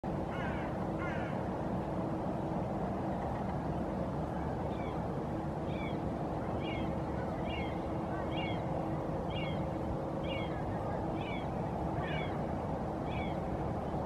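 A bird's short high call repeated about once a second from about five seconds in, with two similar calls in the first second, over a steady low background rumble with a faint hum.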